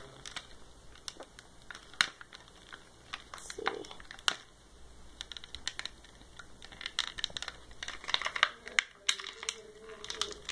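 Clear plastic blister pack of a toy figure crinkling and clicking as hands pull it open. There is a sharp click about two seconds in, and a denser run of crinkling near the end.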